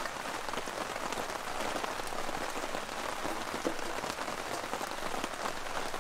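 Steady rain pattering on a tarp shelter overhead, a dense hiss of many fine drop ticks.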